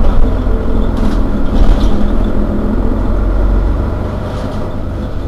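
Mercedes-Benz Citaro Facelift city bus engine idling steadily while the bus stands at a stop, heard from just behind the rear engine bay, with a deep low rumble and a faint thin whine above it.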